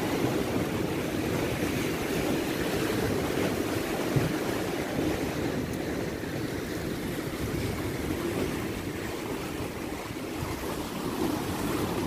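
Sea waves washing against a concrete-block breakwater, a steady surf noise with wind on the microphone.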